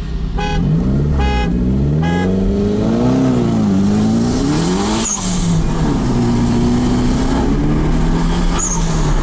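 Mitsubishi GTO's twin-turbo V6, heard from inside the cabin, revving up and down in the first few seconds and then pulling steadily from about six seconds in. Three short beeps sound near the start.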